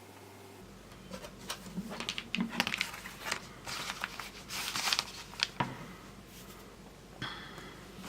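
Small clicks, taps and crinkly rustles of a smartphone being handled. A brief high tone sounds near the end.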